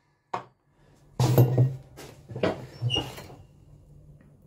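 Handling noise of a handsaw and the wooden tooth-cutting jig on a workbench: a few separate knocks and clatters, one with a brief ringing tone about three seconds in, then quieter.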